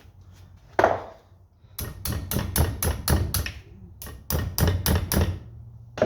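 Hammer blows on the end of a driver bit, metal on metal: one strike, then two quick runs of about half a dozen sharp strikes each. The bit is being seated hard in a seized screw head so that it won't strip.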